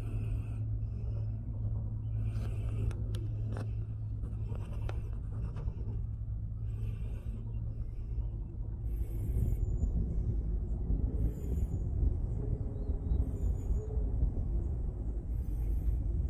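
Cable car cabin travelling along its haul rope: a steady low rumble and hum, with a few light clicks and short high-pitched sounds every second or two.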